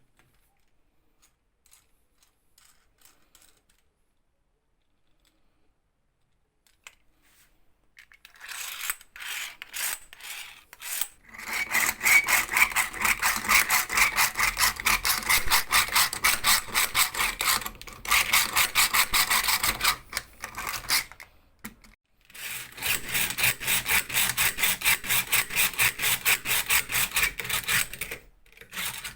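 Restored Archimedes drill boring into wood: fast, even rasping strokes, about four a second, in three runs with short pauses between them.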